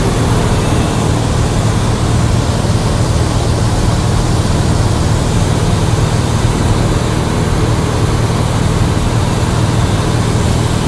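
Cessna 172's piston engine and propeller droning steadily, heard from inside the cabin.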